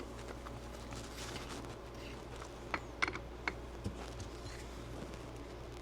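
A handful of light clicks and taps, most of them in a cluster a little past the middle, over a low steady hum: a pistol slide and sight pusher tool being handled and set up on the bench.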